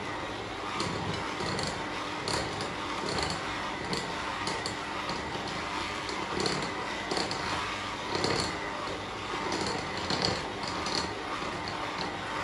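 Bosch electric hand mixer running steadily, its beaters churning a thick walnut-and-biscuit batter in a glass bowl, with a constant motor whine and small irregular ticks on top.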